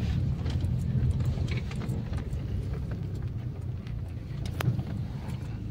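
A car rumbling slowly over a rough dirt track, heard from inside the cabin, with scattered knocks and rattles and one louder knock near the end.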